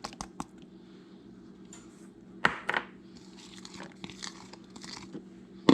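Granulated sugar being poured over chopped onion in a jar: a soft, grainy hiss, with a few light clicks and one louder knock about halfway through.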